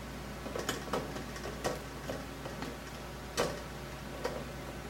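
Screwdriver prying at the cut rivets of a voltage stabilizer's sheet-metal case: a series of irregular sharp clicks, the loudest about three and a half seconds in.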